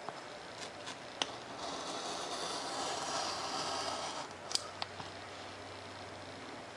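Razor knife drawn along a ruler through a sheet of 3mm Depron foam: a long scratchy cutting stroke of about three seconds, with a few sharp clicks of the knife and ruler before and after it.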